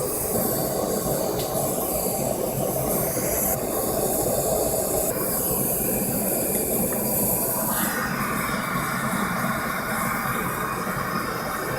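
Gas burner flame running with a steady roaring hiss, heating silver until it is molten and ready to pour. Its sound shifts about eight seconds in.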